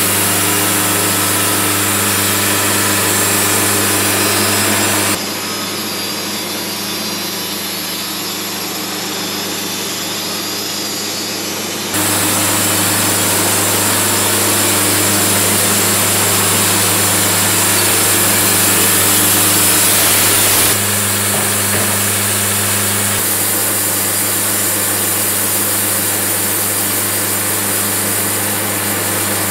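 Wood-Mizer portable bandsaw mill running steadily, its band blade sawing through a juniper log. The sound steps abruptly louder or quieter several times.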